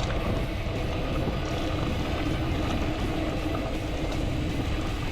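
Mountain bike descending a dirt singletrack trail: a steady rush of wind and tyre noise with the bike rattling.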